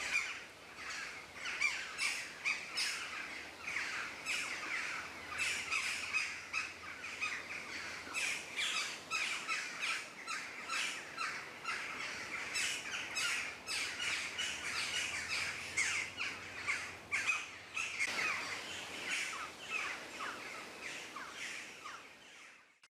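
Forest ambience of many birds chirping and calling at once, a dense, continuous chorus of short calls that fades out near the end.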